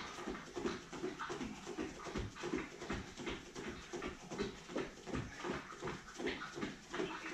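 Bare feet thudding in a steady rhythm on exercise mats and a wooden floor from two people running on the spot with high knees, with hard panting breaths.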